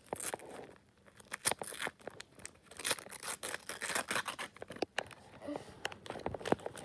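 Foil wrapper of a LEGO trading-card pack being torn open by hand, in a series of short crackling rips and crinkles with brief pauses between them.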